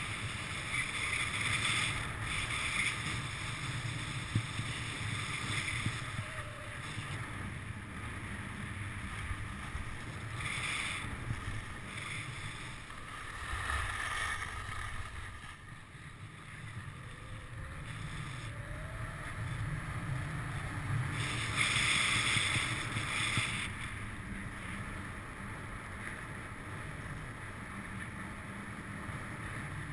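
Skis sliding and scraping over packed snow, with several louder scrapes a second or two long as the edges bite on turns; the longest comes about two-thirds of the way through. Wind rumbles on the camera's microphone throughout.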